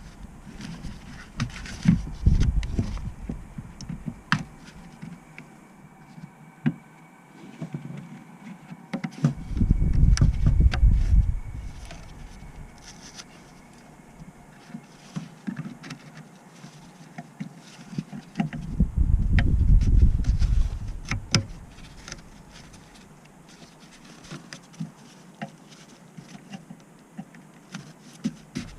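Scattered clicks and light metallic knocks, typical of hand tools and parts being handled during car repair work. Two stretches of low rumble, each lasting a couple of seconds, come about a third and two thirds of the way through.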